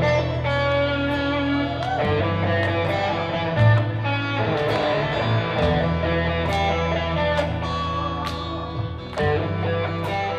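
Fusion band music led by guitar, with sustained melodic notes over a steady beat.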